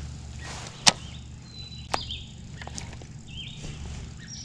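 Birds chirping in short, sweeping notes, with a sharp click about a second in and a softer click about two seconds in.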